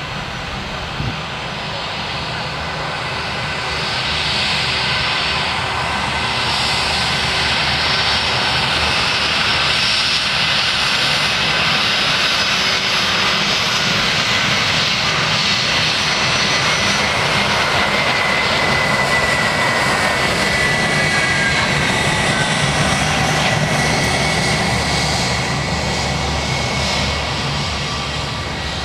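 Airbus A320-232 jet landing, its engine noise swelling as it comes past close by. A high whine drops in pitch as it goes by, and the sound then eases off as the airliner rolls out down the runway.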